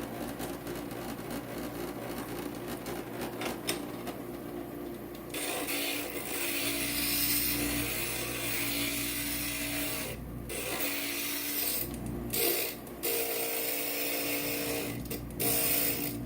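Inland stained-glass grinder running, its motor giving a steady hum. From about five seconds in, glass is pressed against the grinding bit and a gritty hiss of grinding sets in. The hiss breaks off briefly a few times and resumes.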